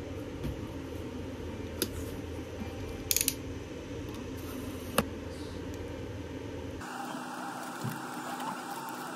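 Air purifier fan running steadily while a white cardboard box is opened and its contents handled by hand, giving a few sharp clicks and taps, a quick cluster of them about three seconds in. The low part of the hum cuts off suddenly about seven seconds in.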